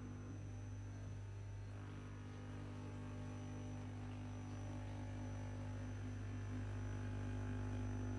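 Steady low electric hum from the vibrating device under the molding table, with a thin high steady whine above it; it grows slightly louder near the end.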